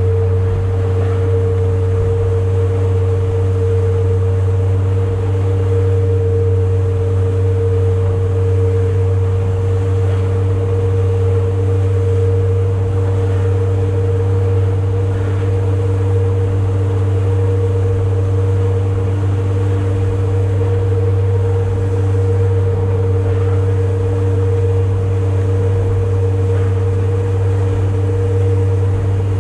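Boat engine running steadily, a loud low drone with a steady higher hum over it that holds the same level throughout.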